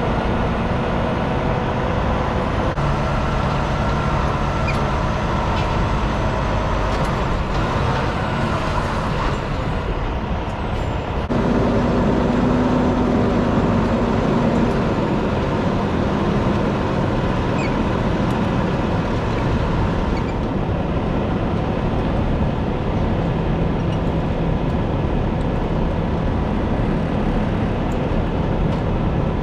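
Peterbilt 579 semi truck's diesel engine running as the truck drives slowly, a steady drone with road noise; about eleven seconds in it gets louder and stays so.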